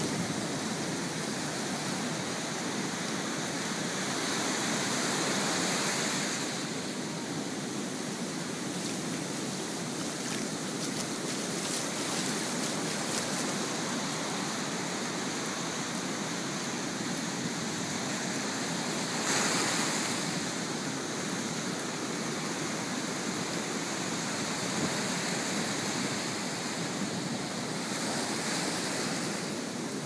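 Ocean surf breaking and washing up a sand beach, a continuous hiss of foam that swells louder twice, about five seconds in and again, more suddenly, about nineteen seconds in.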